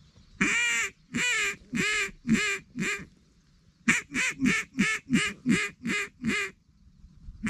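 A hunter's duck call blown in loud quacking runs: about six quacks, then after a short pause a faster run of about nine, roughly three a second, to bring circling ducks in.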